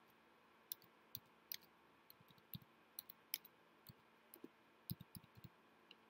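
Quiet room tone broken by a dozen or more small, sharp clicks and taps at irregular intervals, a few of them with a duller knock just before five seconds in.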